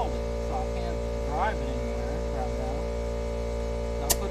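Steady hum of a McGraw 8-gallon oil-free air compressor running while a tire is filled through an air chuck on the valve stem, with one sharp click near the end.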